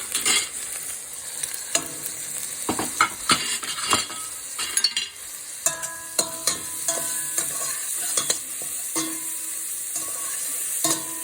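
Golden-brown onions frying in hot oil in a cooking pot, sizzling steadily as spices and chopped garlic and ginger go in. A spoon clinks, knocks and scrapes against the pot while the mixture is stirred, with ringing metal knocks in the second half.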